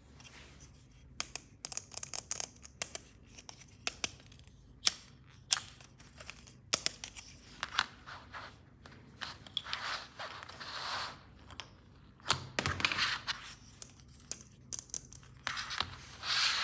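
Toy packaging being opened and handled: tearing and rubbing of packaging, with many sharp clicks and several longer swishing scrapes.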